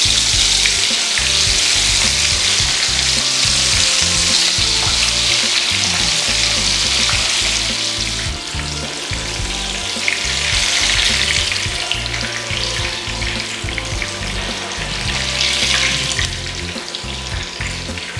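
Shrimp spring rolls shallow-frying in hot oil in a non-stick pan: a continuous sizzle that eases a little about eight seconds in and swells again soon after.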